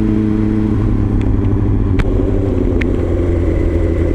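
Honda CBR sportbike's inline-four engine running at steady revs on the move, with a couple of short clicks about two and three seconds in.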